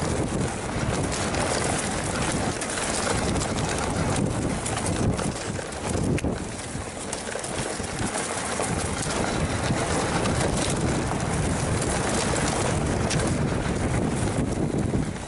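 Mountain bike riding over a rough dirt trail: wind buffeting the microphone, tyres on dirt, and the bike rattling and knocking over bumps.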